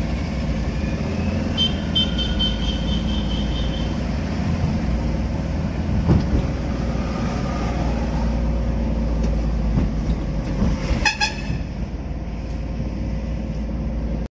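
Steady engine and road noise inside a moving car. A high, pulsing horn sounds for about two seconds starting near two seconds in, and a short horn toot comes about eleven seconds in.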